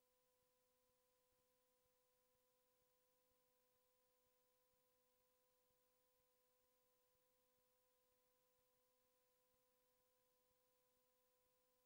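Near silence, with only a very faint, steady electronic tone in the background.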